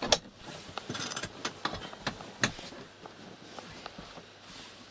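A few sharp knocks and clicks of household handling, the loudest right at the start and another about two and a half seconds in, then quiet rustling.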